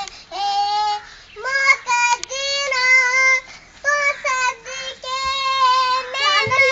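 A young girl singing solo, unaccompanied, in long held notes with short breaks between phrases.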